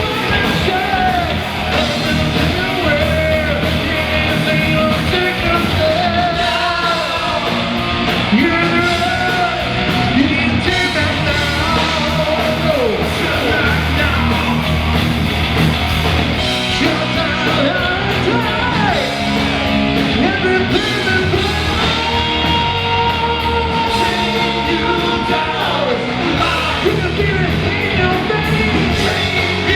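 A rock band playing a song live, with a lead singer singing over the band.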